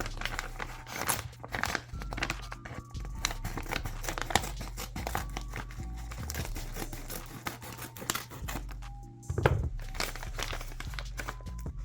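A mailing package being torn open by hand: crinkling and tearing of the packaging in many quick rustles, over steady background music.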